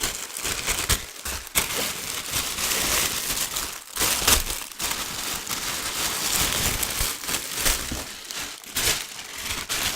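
Plastic packets of microfoam beads crinkling and rustling as they are handled, with many short sharp crackles.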